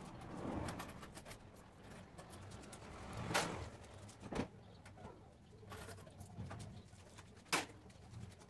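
Pigeons cooing in the background, with a few sharp knocks and clatters of things being handled and taken out of a car. The loudest knocks come a little over a third of the way in and near the end.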